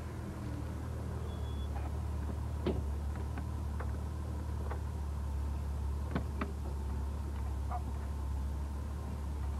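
Saloon car with its engine running at a low, steady rumble as it stands at the kerb of the parade ground. A few sharp knocks sound over it, one a little under 3 seconds in and a quick pair about 6 seconds in.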